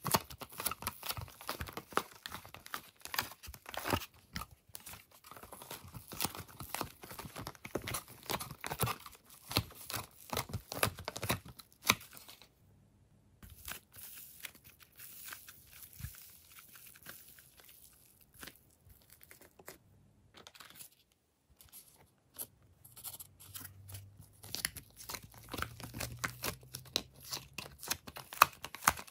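Rapid crackling and crinkling of soft clay being squeezed and pulled out of a plastic ice-cube tray by hand. It drops to near silence about twelve seconds in, with only scattered soft clicks while slime is stretched, then the crackling returns for the last several seconds.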